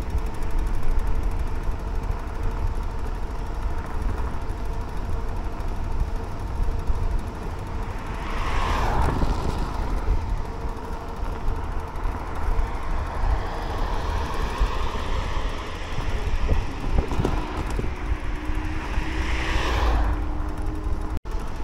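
Teverun Blade GT II electric scooter under way: heavy wind rumble on the microphone, with a faint steady motor whine underneath. Two vehicles pass by, about nine seconds in and again near the end.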